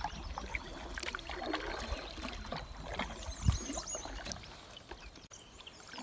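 Canoe paddle strokes from a solo Kevlar canoe: water splashing and dripping off the paddle, with small knocks throughout. A single louder low thump comes about three and a half seconds in.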